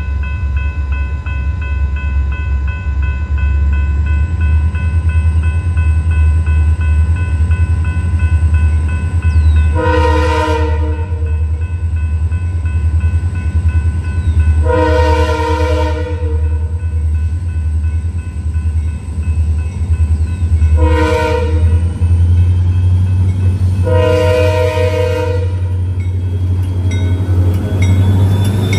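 EMD diesel locomotives of a seven-unit lashup working hard in notch 8, a deep steady engine rumble throughout. About ten seconds in, the lead unit's air horn sounds four blasts, long, long, short, long: the standard warning for a grade crossing.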